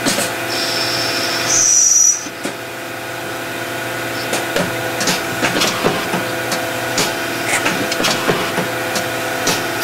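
Hardinge CNC chucker lathe running through an automatic cycle on brass bar stock: a steady motor and spindle hum with frequent small clicks and ticks from cutting. A high whine comes in about half a second in, steps up in pitch and cuts off at about two seconds.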